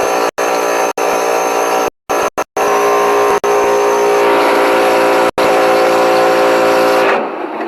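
Small electric motor running with a steady whine, the kind of pump or blower used to clean an air-conditioner's indoor unit. It is chopped off abruptly several times.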